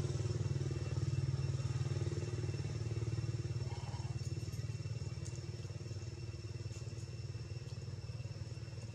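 A steady low engine-like drone, as from a motor idling, with a faint steady high whine above it.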